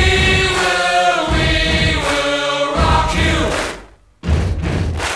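Background music: a song with several voices singing long held notes over a heavy low beat, with short breaks in between.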